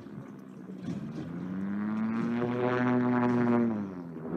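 An engine passing by: a steady droning hum that grows louder and rises slightly in pitch, then drops in pitch and fades about four seconds in as it goes past.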